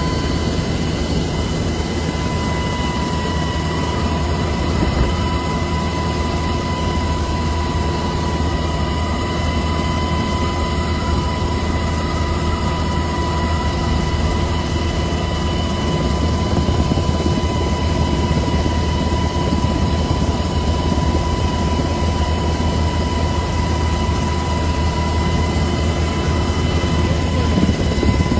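Steady engine drone with a constant high whine over it.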